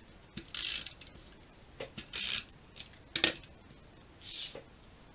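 Adhesive being run onto cardstock with a tape runner: three short raspy strokes, with a few sharp clicks between them, the loudest a little past three seconds in.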